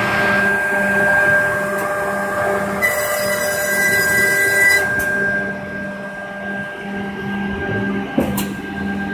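GLORY 45-degree bevel and straight edge banding machine running: a steady mechanical hum and whine from its motors and feed, with the low hum pulsing about once a second. About three seconds in, a higher tone with a hiss joins for about two seconds, and a single sharp click comes near the end.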